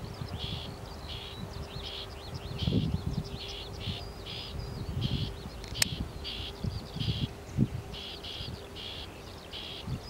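Small songbirds chirping in a regular series of high notes, about two a second, with some quick twittering notes among them. Wind gusts rumble on the microphone.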